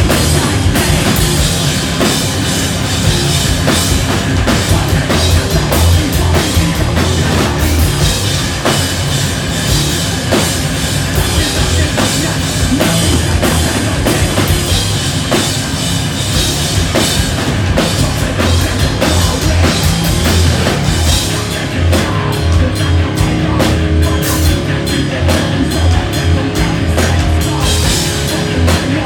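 Hardcore band playing live and loud: distorted guitars, bass and a pounding drum kit. About three quarters of the way through, the music changes to a sparser, choppier passage.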